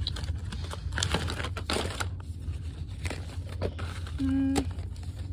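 Baseball cards being riffled and shifted in a packed plastic storage box: dry rustling and crinkling with many small clicks of card edges. A short hummed 'mm' from a voice comes about four seconds in.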